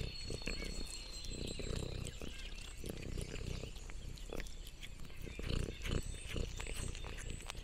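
Domestic cat licking and chewing a piece of meat held in fingers, close to the microphone: an irregular run of small licking and chewing clicks.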